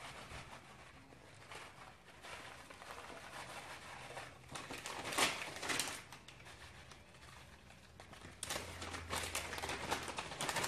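Plastic packet of grated parmesan crinkling and rustling as the cheese is shaken out of it over a dish, with louder bursts of rustling in the middle and again near the end.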